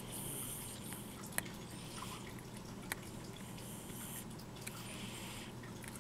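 A hooked steel dental scaler scraping plaque from a cat's teeth at the gumline. Faint scratching and rustling come in short spells, with two sharp clicks of metal on tooth about a second and a half apart.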